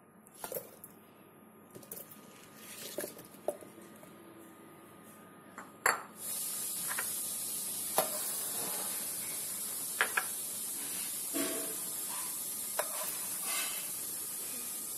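Chunks of muskmelon and a serving cup knocking and clinking against a stainless steel mixer-grinder jar as the fruit, milk and sugar are added, in scattered short knocks. A steady hiss starts suddenly about six seconds in.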